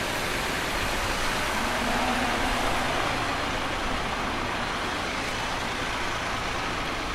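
Steady city road traffic, with a motor vehicle passing that swells a little louder about two to three seconds in.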